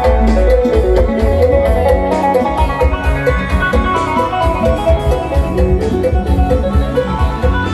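Isan lai phin music, a fast plucked phin lute melody over a heavy, regular bass beat, played loud through the loudspeaker cabinets of a Thai rot hae sound truck.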